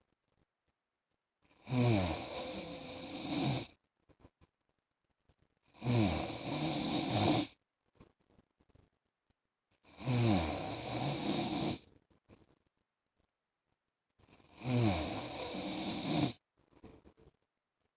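A man snoring in sleep: four loud snores, each about two seconds long and coming roughly every four seconds, with quiet breaths between. Each snore starts with a falling pitch.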